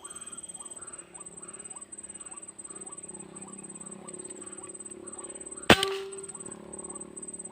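A single sharp air-rifle shot about three-quarters of the way through, followed by a brief ring. Behind it runs a steady chorus of evenly repeated calls, about three a second, with a high pulsing insect drone.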